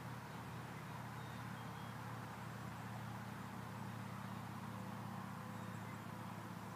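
Steady low hum of an engine running, with faint outdoor background noise.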